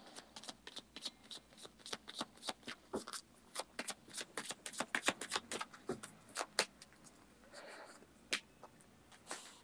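A deck of fortune-telling cards being shuffled and handled by hand: a run of soft, irregular clicks and flicks as the cards slide and tap against each other.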